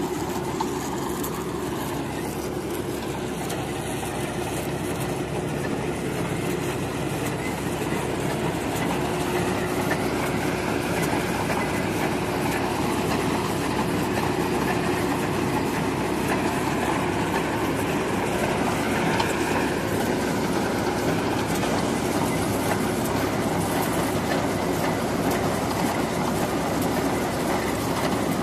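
Truck-mounted borewell drilling rig running steadily while drilling a tubewell, with drilling mud being circulated out of the hole. The machine note stays unchanging and grows slightly louder about eight seconds in.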